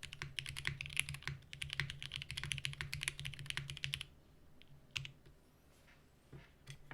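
Fast typing on a 60% mechanical keyboard with lubed Cherry MX Black Hyperglide linear switches and GMK keycaps, a dense run of key clacks. The run stops about four seconds in, leaving only a few scattered keystrokes.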